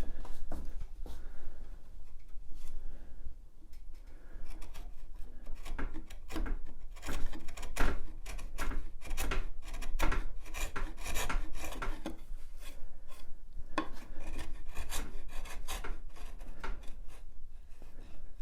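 Hand chisel paring pallet wood down to a marked line: a run of short scraping, shaving strokes of the blade through the wood, with small knocks in between.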